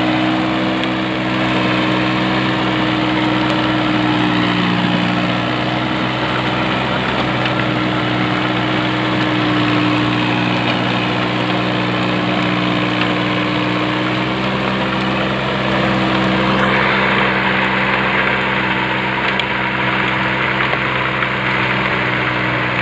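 VST Shakti MT 180D compact tractor's diesel engine running steadily under load while it drives a rotary tiller through the soil. A higher hissing noise grows louder about three-quarters of the way through.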